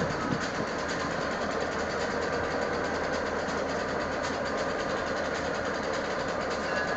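Diesel freight locomotives idling with a steady engine rumble; a faint high steady tone joins in near the end.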